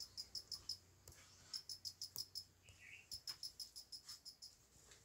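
Faint, rapid, high-pitched animal chirping in short runs of several chirps a second, with one lower, sliding chirp about three seconds in.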